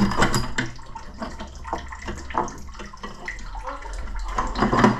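Water splashing and trickling in an opened Vaillant ecoTEC boiler, with scattered knocks and scrapes as a tight metal return pipe is forced out of the heat exchanger by hand.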